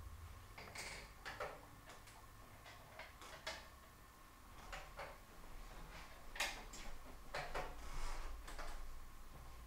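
Scattered light clicks and taps at irregular intervals, a few of them louder about halfway through and near the end, over a faint steady hum.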